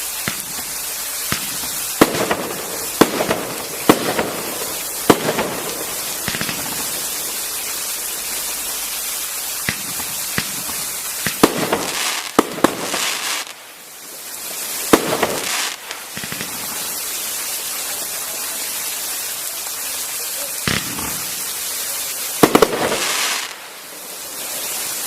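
Consumer 500-gram aerial fireworks cakes firing: a string of sharp bangs at irregular intervals, each with a short crackling or echoing tail, bunching into quick clusters about halfway through and near the end. A steady hiss sits under it.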